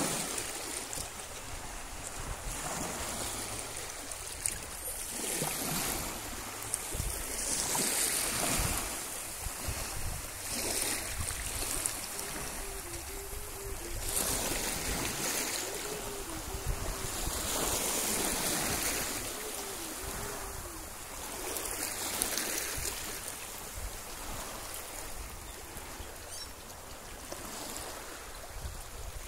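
Small waves washing in over a shallow rocky reef shore, the surf swelling and fading every few seconds.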